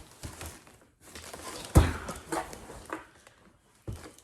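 Box contents and plastic packaging being handled: rustling with a few knocks, the loudest a sharp knock a little under two seconds in.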